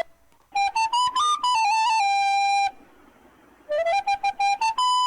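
A flute-like wind instrument plays two short phrases of stepped notes. Each phrase ends on a held note.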